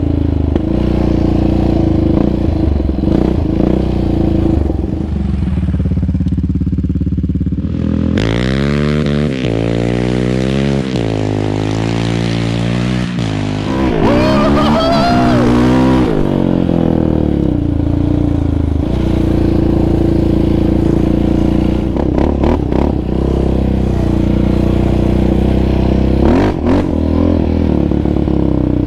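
Yamaha Raptor 700R sport ATV's single-cylinder four-stroke engine, breathing through an aftermarket Monster exhaust and FCI intake, running under load on a dirt trail. In the middle stretch the revs climb and drop several times as the throttle is worked.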